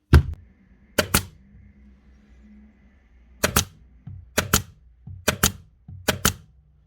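Basso B23/25 A1 pneumatic 23-gauge headless pin nailer firing about six times, each shot a sharp double crack, the first the loudest. The gun is shooting again now that its failed trigger O-rings have been replaced.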